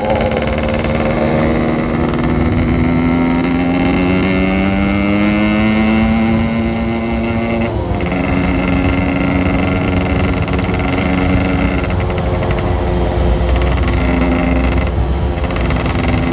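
Yamaha RX-King's 135cc two-stroke single-cylinder engine under way, its pitch rising for about eight seconds as the bike accelerates, then dropping at a gear change about halfway through and running on more evenly.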